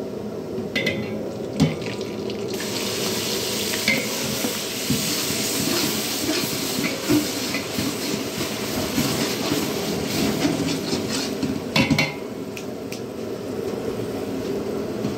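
Chopped onions hitting hot oil with cumin seeds in a large metal pot and sizzling: a dense frying hiss that starts about two and a half seconds in and eases off after about twelve seconds. A metal spatula stirs, with a few sharp clanks against the pot.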